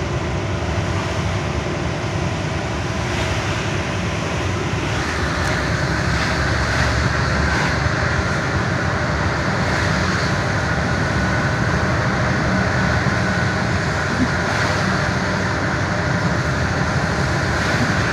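Truck running on the road, heard from inside the cab: a steady engine drone under road and wind noise, which gets a little louder and brighter about five seconds in.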